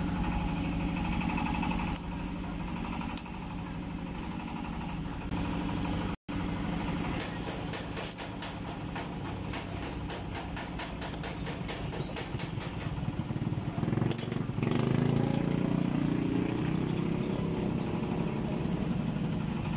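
A motorcycle engine idling steadily, growing louder about two-thirds of the way through. A run of rapid, even clicks comes in the middle while pliers work at the wiring and the speedometer cable joint behind the headlight.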